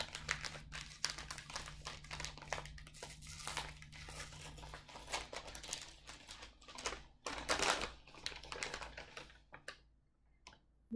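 Wrapping being crinkled and torn open around a mini skein of yarn: an irregular run of paper or plastic crackles and rustles, loudest about three-quarters of the way through, then dying away.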